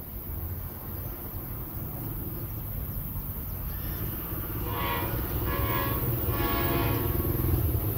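Train horn sounding three blasts in quick succession, starting about four and a half seconds in, from a train approaching the station. Under it a low rumble slowly grows louder.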